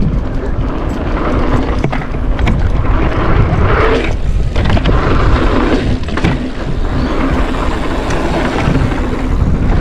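Mountain bike riding a dirt trail: wind buffeting the microphone with tyres rolling, and the bike rattling and knocking sharply over bumps now and then.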